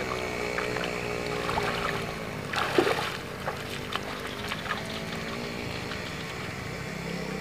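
Feet wading and splashing through shallow river water, the loudest splashes about two and a half to three seconds in, over a steady droning hum.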